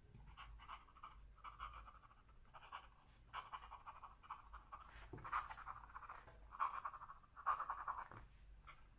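Fountain pen with a Jowo #6 medium nib writing upside down on paper: faint scratchy strokes of the nib, coming in short clusters with each letter. Reverse writing this nib is very scratchy.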